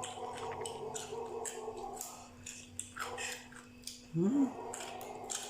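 A person eating a spicy Thai seafood salad: chewing with many small clicks, and a short rising vocal sound about four seconds in.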